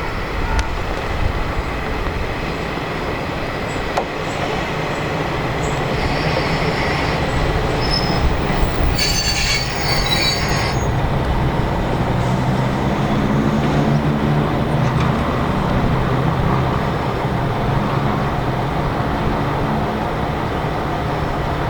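Diesel railcar running on the track with its wheels squealing in high thin whines, and a brief, sharper high burst about nine seconds in. A low engine drone grows stronger in the second half.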